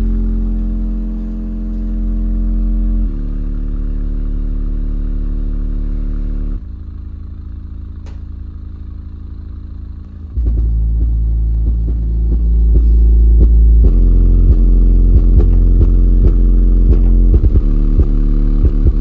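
Timpano TPT-3500 subwoofer driven hard by a palm-sized Deaf Bonce amplifier, playing long, deep bass notes that change pitch every few seconds. It goes quieter for a few seconds in the middle, then louder, with rattling clicks from about twelve seconds in.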